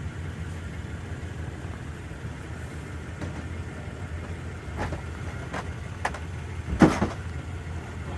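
Steady low rumble of a car, with several short knocks and thumps as things are loaded into it; the loudest comes about seven seconds in.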